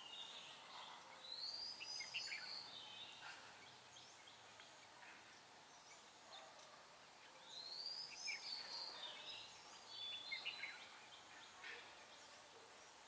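Red-whiskered bulbul singing faintly: two short phrases of arching whistled notes, one about a second and a half in and another about seven and a half seconds in, over a quiet background hiss.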